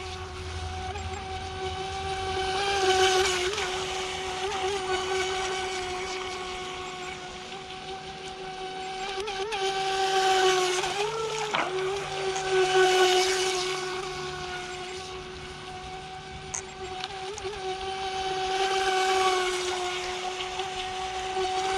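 Hosim electric RC speedboat on a 3S battery running at full throttle: a steady high motor whine over the hiss of the hull cutting water, growing louder and fading as the boat passes near, about three times, with a brief dip in pitch near the middle as it turns.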